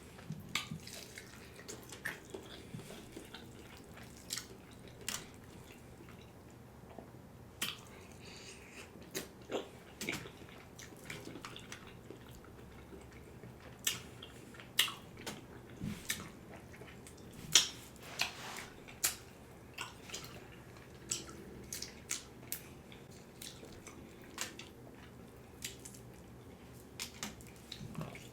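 A person eating fried chicken close to the microphone: irregular crunchy bites and wet chewing and mouth sounds, with sharp clicks scattered at uneven intervals.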